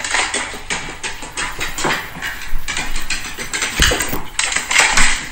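A dog's claws and paws clattering rapidly on hardwood stairs as it scrambles down them, with a heavier thump a little under four seconds in.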